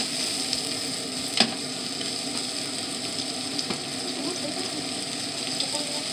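Chopped cabbage and sliced pork sizzling in sesame oil in a frying pan as they are stirred with tongs. A sharp click of the tongs against the pan comes about a second and a half in, and a lighter one near four seconds.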